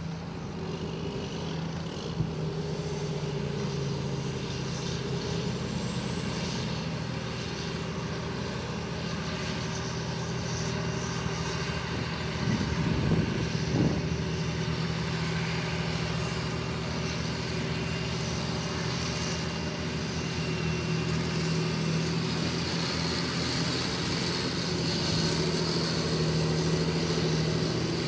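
Large John Deere tractors' six-cylinder diesel engines running under load: a steady drone as one tractor pulls a loaded slurry tanker, with a few knocks about halfway through. A second tractor pulling a cultivator grows louder near the end.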